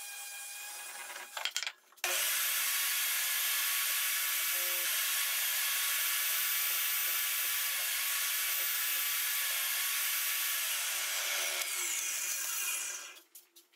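An orbital sander runs briefly against wood, then a table saw runs steadily with a high whine while a dowel is crosscut into short plugs on a sled. Near the end the whine falls in pitch as the blade spins down after switch-off.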